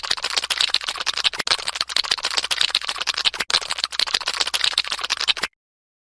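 Snail sound effect: a dense, fast crackling and rasping made of many tiny clicks, cutting off abruptly near the end.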